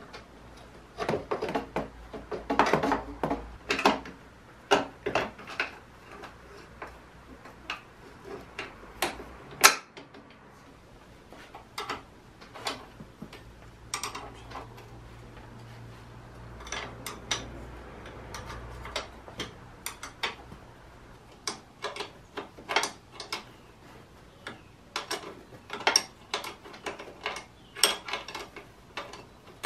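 Hand tools and mounting bolts clicking, clinking and knocking irregularly as a rebuilt rear shock absorber is fitted to a pit bike, with one sharper knock about ten seconds in.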